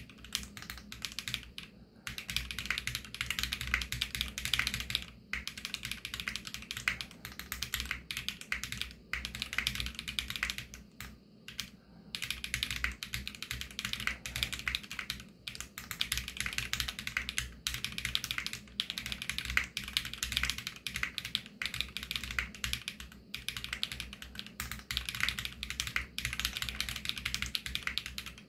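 Typing on an AJAZZ x VARO SAN AC067 65% mechanical keyboard with Krytox-lubed Varo Panda tactile switches and PBT keycaps: a steady stream of keystroke clacks. The typing breaks off briefly about 2 and 5 seconds in, and again around 11 to 12 seconds.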